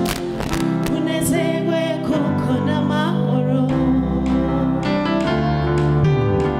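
Gospel choir singing with a woman's lead voice on microphone over instrumental backing, a song in Kinyarwanda.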